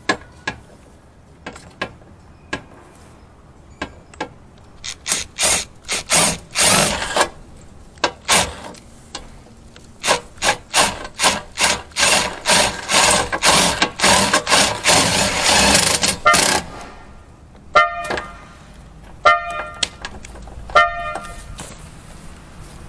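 Cordless impact driver turning a hole saw into the steel body panel behind the car's front fender, hammering in short stuttering bursts that run into a long continuous stretch and then stop. Near the end the car's security alarm sounds three short tone blasts about a second and a half apart, set off by the vibration of the drilling.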